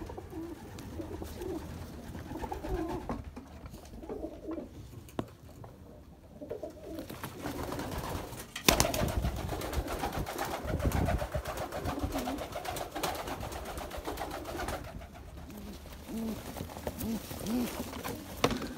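Domestic pigeons cooing in a wooden loft. About a third of the way in there is a sudden knock, followed by several seconds of wing flapping and rustling, before the cooing carries on.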